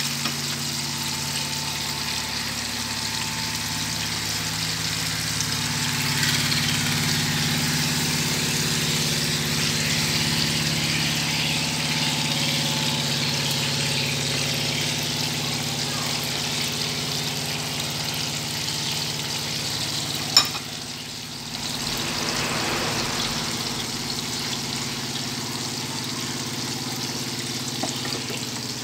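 Silver pomfret braising in a pan of seasoned liquid: a bubbling sizzle over the steady hum of the induction cooktop. A single sharp click comes about twenty seconds in.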